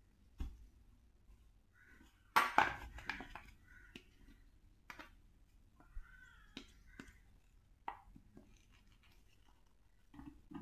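Scattered clicks and knocks of hard plastic parts being handled, with a louder clatter and rustle a little over two seconds in.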